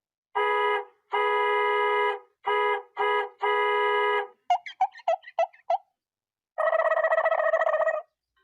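Comedy sound effects played back to back. First a horn-like electronic tone sounds five times at one pitch, in short and long notes. Then comes a quick run of short pips, and then a buzzy tone lasting about a second and a half.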